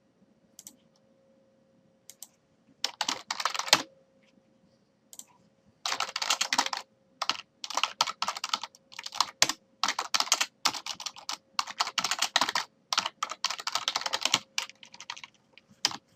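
Typing on a computer keyboard: a few scattered keystrokes, a short burst about three seconds in, then fast runs of typing from about six seconds on, broken by brief pauses. A faint steady hum sits underneath.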